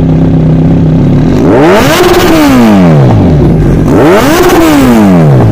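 Motorcycle with an SC Project slip-on exhaust idling, then revved twice, the note climbing and sinking back over about two seconds each time.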